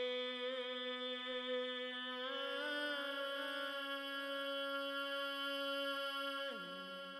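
Closing music: a single melody line holds long, steady notes, stepping up in pitch a little after two seconds, then sliding downward in pitch near the end as it begins to fade.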